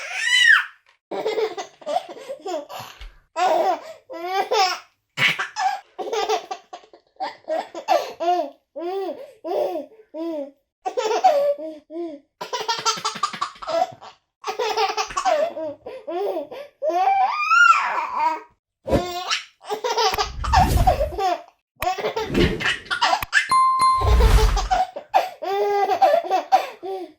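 A baby laughing over and over in short giggles and belly laughs, with brief pauses between them. Two low rumbles come about two-thirds of the way through.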